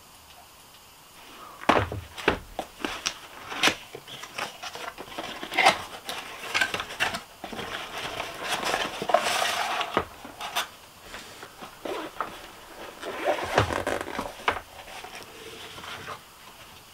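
Hands unpacking a cardboard box and a fabric tool case on a table: irregular clicks, knocks, scrapes and rustling, starting about a second and a half in.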